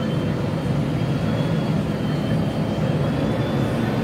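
Heavy engine running steadily: a low drone, with a faint high whine that slowly rises in pitch.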